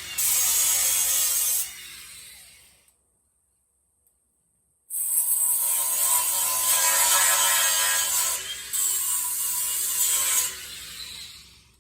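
Power grinder grinding metal in two runs: it stops and winds down to silence about three seconds in, starts again about two seconds later, and winds down again near the end.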